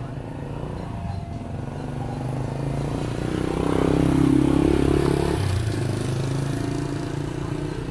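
A motor vehicle's engine passing close by. It grows louder to a peak about four to five seconds in, then drops to a lower note and fades.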